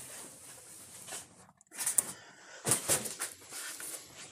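Rustling and scraping handling noises with a sharp click about two seconds in and a second louder stretch of rustling around three seconds in.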